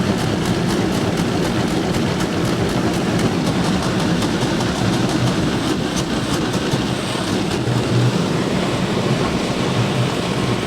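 Small go-kart engine running steadily on its freshly cleaned carburetor. It is not yet running right, which the owner suspects is old gas still in the tank.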